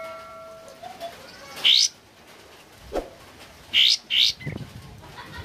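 Caged olive-winged bulbul (kapas tembak) calling in short, loud, rising whistled notes: one at nearly two seconds in, then a quick pair around four seconds. A ringing tone fades out during the first second.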